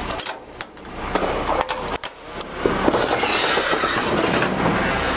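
Metallic rattling and clatter from truck loading work, with a few sharp clicks at first, then a louder rattle that sets in about two and a half seconds in.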